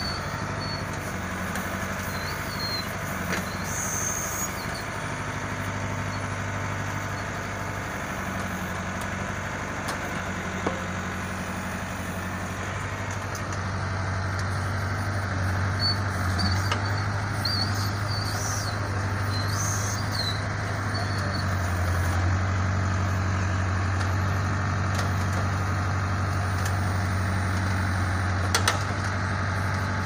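Backhoe loader's diesel engine running steadily as the backhoe digs, its hum growing louder about halfway through as the machine works harder. Short high squeaks come through a few times.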